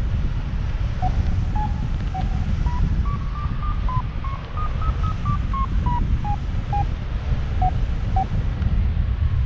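Paragliding variometer beeping about twice a second, each beep a short tone whose pitch steps up and then back down, signalling weak climbing lift in a thermal. Under it is a steady rush of airflow over the microphone in flight.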